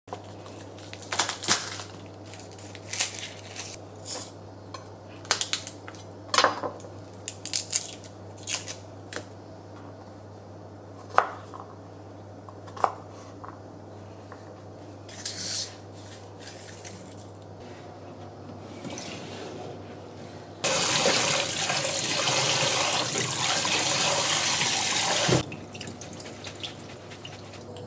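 Dry crackling of garlic cloves being peeled by hand, and a couple of sharp knocks of a kitchen knife on a wooden cutting board. Then, about two-thirds in, a kitchen tap runs hard into a stainless steel sink for about five seconds as shiso leaves are rinsed in a mesh colander, stopping suddenly.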